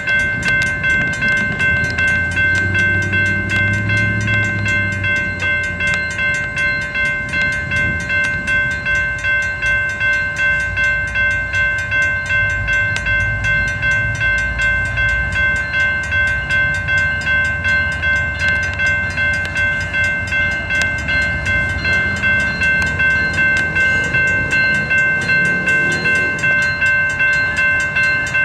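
A railroad bell ringing steadily, a little over two strikes a second, over the low rumble of Canadian National ET44AC diesel-electric locomotives moving a freight train.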